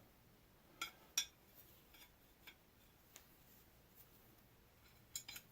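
A few faint, sharp metallic clicks and clinks, spaced irregularly, from the steel rivet pin and forged box tong parts being handled and fitted together.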